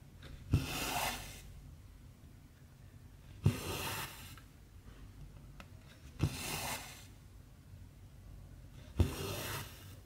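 Cross-stitch needle and cotton thread working 14-count stamped fabric, four stitches about three seconds apart: each a sharp pop of the needle through the cloth followed by a rasping pull of the thread lasting under a second.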